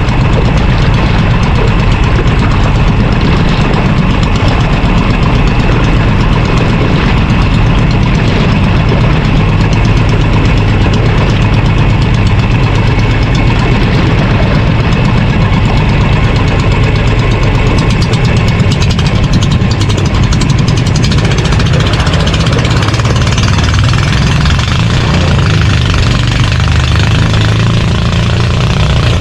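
Engine of a Philippine fishing bangka running steadily under way during a speed run, loud and close.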